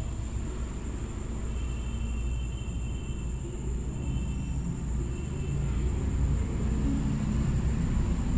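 Steady low background rumble with a constant faint high-pitched whine, and a couple of faint high tones that hold for a second or two partway through.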